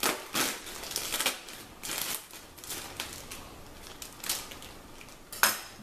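Plastic microwave steam bag of vegetables crinkling and crackling as it is cut and pulled open with a kitchen knife, in irregular bursts, the loudest near the end.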